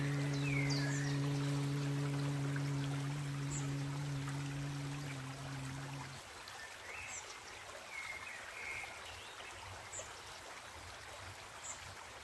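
A man chanting a long, steady low 'om' on the exhale of a pranav kriya breath, which ends about six seconds in. After it come the running water of a creek and a few short bird chirps.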